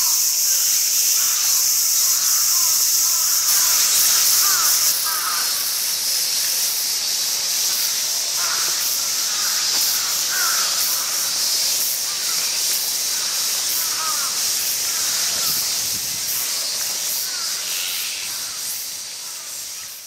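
A group of azure-winged magpies calling in short, harsh, repeated notes, over a steady high hiss. The sound fades out near the end.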